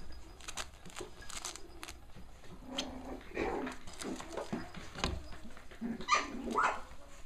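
Cavalier King Charles Spaniel puppy barking in short high yips, a few in the middle and the loudest pair near the end.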